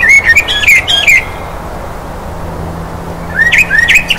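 A bird chirping in two quick runs of short calls, one at the start and another about three seconds in, over a steady background hiss.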